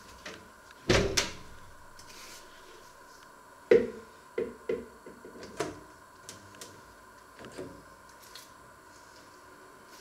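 Built-in oven door swung shut with a double thunk about a second in. A sharp click follows, then several lighter clicks as the oven's control knob and buttons are set.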